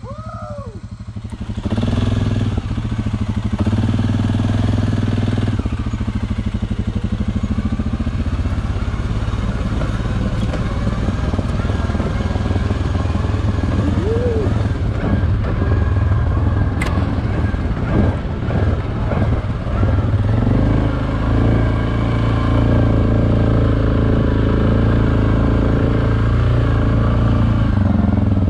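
ATV engine running steadily under way on a dirt trail, heard from on the quad itself. The loudness dips and surges for a couple of seconds partway through, and there is one sharp knock.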